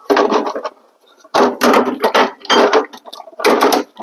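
Tools clattering and rattling in four short bursts, as when rummaging through a toolbox for a rubber mallet.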